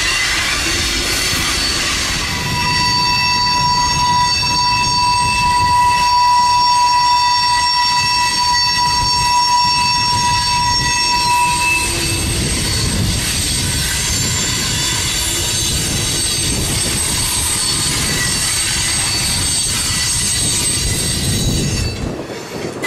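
Freight train rolling past with its wheels squealing against the rails, a steady high squeal running from about two seconds in to about twelve seconds, over the low rumble of the cars. Fainter high squeals come and go after that.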